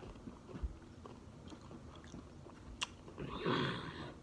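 Chewing and crunching of Takis rolled tortilla chips, with scattered small crunches and a louder, noisier burst about three seconds in.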